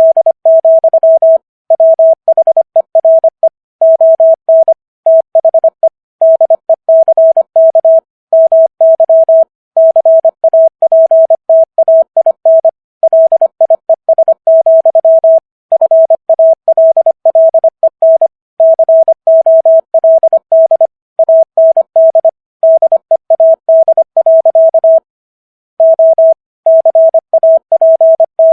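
Morse code at 25 words per minute: a single steady beep tone keyed on and off in quick short and long elements, grouped into letters and words and spelling out the text of Walt Whitman's 'O Captain! My Captain!'. There is a longer pause about 25 seconds in.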